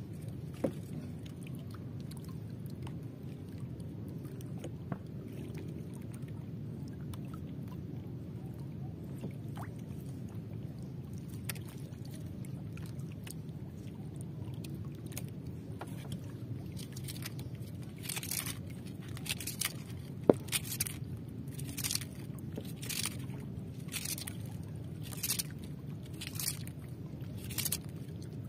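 Low steady wash of water against the hull of a small outrigger boat. In the second half, short swishing scrapes repeat about three every two seconds, with a sharp click about twenty seconds in.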